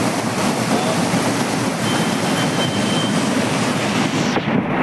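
Heavy rain falling, a loud, dense, steady hiss. The higher part of the hiss drops away about four and a half seconds in.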